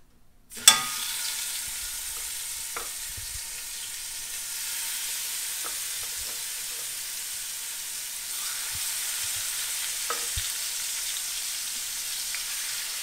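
Pork chops going into hot olive oil in a cast-iron skillet: a sudden loud sizzle as the first chop hits the pan about half a second in, then a steady sizzle of the meat searing, with a few light clicks as more chops are laid in with tongs.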